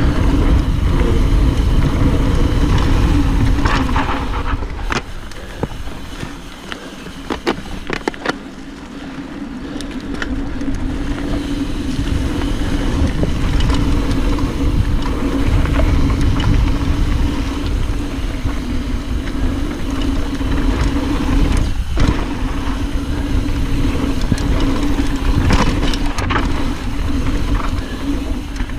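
Wind rush and tyre rumble from a mountain bike descending a dirt trail, heard through a chest-mounted action camera, with a steady low hum. Between about four and eight seconds in the noise eases off and sharp rattles and knocks come from the bike over bumps, then the rush builds back up as speed picks up.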